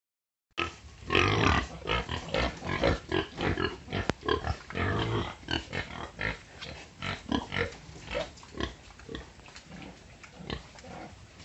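Hampshire pigs making a run of short, irregular calls that come thick and loud in the first half and thin out toward the end.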